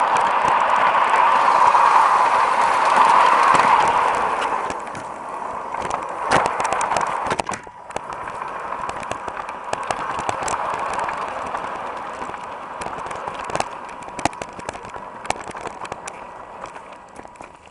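LGB garden-scale model train running, heard from a camera riding on it: a steady motor and gear whine with the wheels clicking over rail joints and points. It grows quieter about four seconds in and fades further toward the end.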